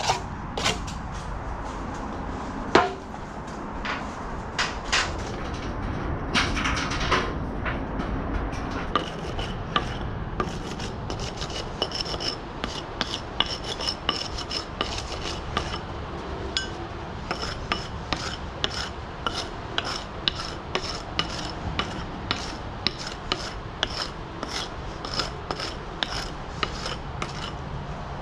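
Bricklaying work on a steel scaffold: scraping and rubbing, with sharp clicks that settle into about two a second some nine seconds in, each with a faint metallic ring.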